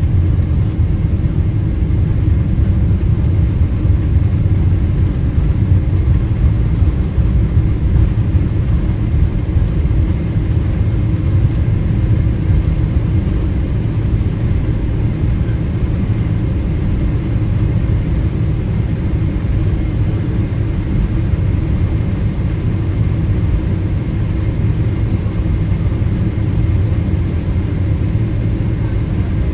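Cabin noise of a Boeing 777-206ER rolling on the ground after landing: a steady low rumble from the GE90 engines and the wheels on the pavement, with a faint thin whine above it.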